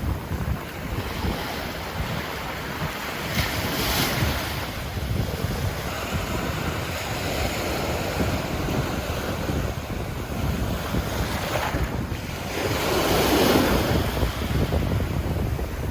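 Ocean surf on a sandy beach: waves breaking and washing up the shore in a steady hiss, swelling about four seconds in and again, loudest, near the end. A low buffeting of wind on the microphone runs underneath.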